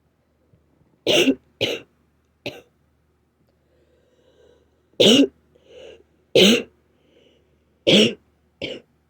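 A person with a cold coughing: dry, raspy coughs from a sore throat. They come in two bouts: three from about a second in, then four more from about five seconds in.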